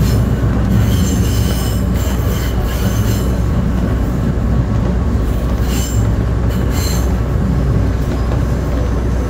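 Inside a Taiwan Railway DRC1000-series diesel railcar running on curved track: a steady low rumble of the engine and wheels, with several brief high-pitched wheel squeals, about a second in and again around six and seven seconds in.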